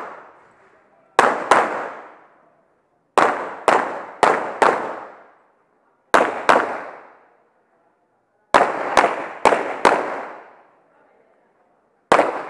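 Pistol shots fired in quick groups, a pair, then four, a pair, four and a pair, about fourteen shots in all, with pauses of one to two seconds between the groups. Each shot is a sharp crack with a short echo dying away after it.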